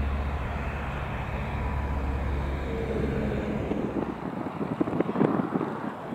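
Single-engine piston light aeroplane flying past: a steady drone from the engine and propeller with a deep hum, which falls away a little after halfway. It leaves a crackly, rustling noise of wind on the microphone with a few sharp clicks.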